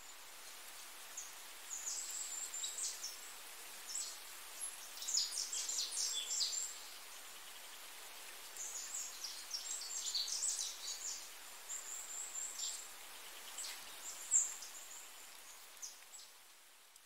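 Small birds chirping and twittering in bursts of quick, high notes, several clusters coming and going, over a steady background hiss.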